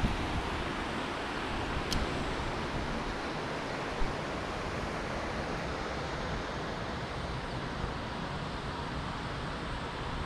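Steady rush of a rocky mountain river with rapids, an even hiss that does not let up. A single sharp tick comes about two seconds in and a soft knock about four seconds in.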